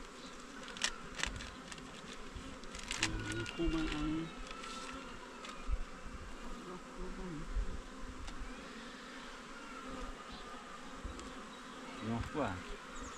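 Insects buzzing, with a few sharp clicks near the start and a short low pitched sound about three to four seconds in.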